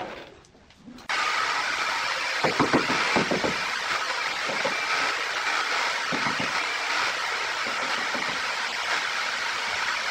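A steady, even machine noise starts abruptly about a second in and runs on unchanged. Over it come a few dull knocks, a quick cluster a couple of seconds in and a couple more later.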